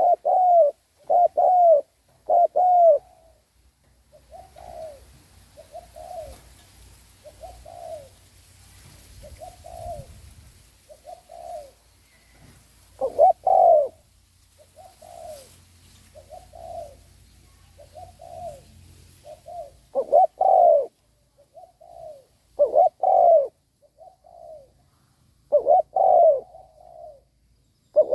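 Spotted dove cooing, the call of a decoy bird meant to draw in wild doves. Loud coos come in short runs of two or three, with softer coos between them.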